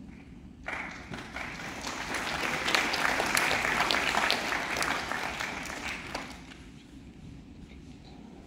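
Audience applauding: the clapping starts under a second in, swells to its loudest midway, and dies away about six seconds in.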